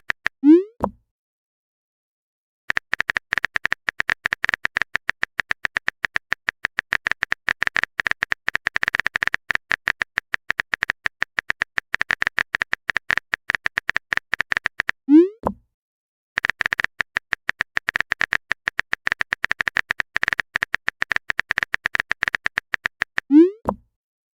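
Phone keyboard typing sound effect: long runs of rapid clicks, each run ended by a short rising 'plop' of a chat message popping up. The plop comes three times: at the start, about halfway through, and near the end.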